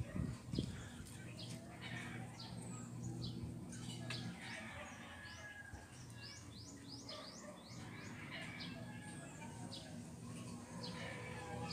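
Small birds chirping in short, high, down-sliding chirps, with a quick run of them near the middle, over a low steady hum.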